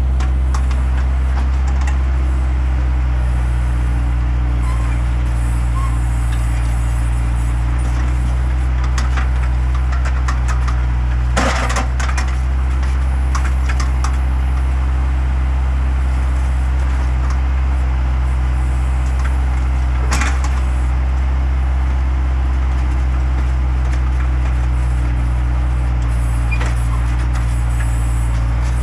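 Bobcat skid-steer loader's diesel engine running steadily while the machine works, backfilling a trench. Brief knocks break through the drone about eleven and twenty seconds in.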